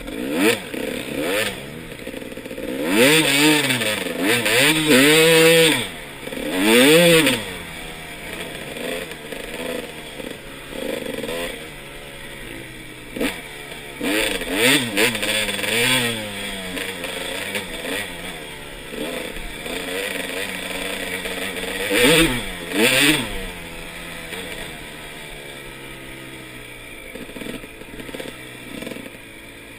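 2001 Honda CR250R's 250 cc two-stroke single-cylinder engine being ridden hard, its pitch climbing and dropping again and again as the throttle is opened and shut. The loudest bursts come about three to seven seconds in and again a little after twenty-two seconds.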